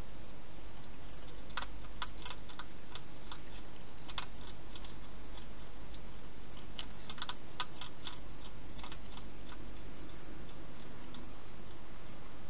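Wild hedgehog chewing food at a bowl: irregular sharp clicks and crunches, in clusters about a second and a half in and again around seven seconds, over a steady low hum and hiss.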